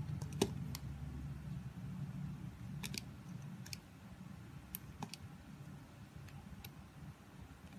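Utility knife blade carving a bar of soap: a dozen or so scattered crisp clicks and snaps, some in quick pairs, as the blade cuts in and slices break away.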